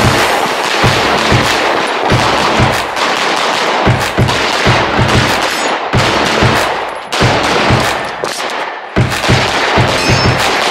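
Open-division race pistol firing rapid shots, mostly in quick pairs and short strings, with brief pauses between strings.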